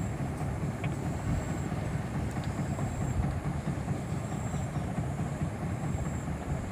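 Steady low rumbling background noise, with a faint high whine that comes and goes.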